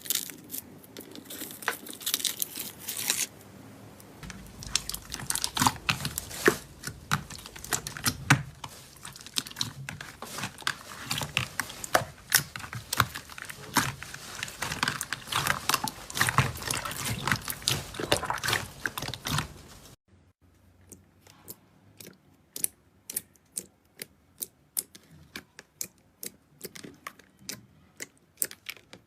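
Slime being squeezed and worked by hand, giving dense crackling and popping clicks. About two-thirds of the way through it cuts to a quieter clip of sparser, sharp clicks.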